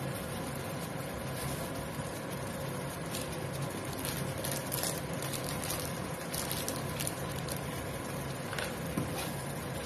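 Thick curry sauce simmering in a frying pan, bubbles popping in a patter of small crackles, over a steady low hum.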